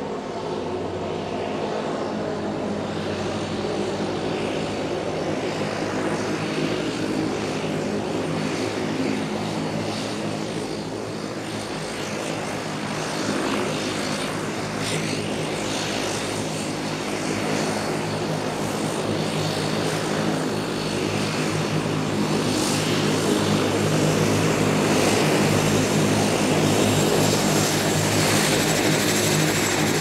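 Airplane engine running steadily with an even engine hum under a broad roar. The sound swells louder over the last third.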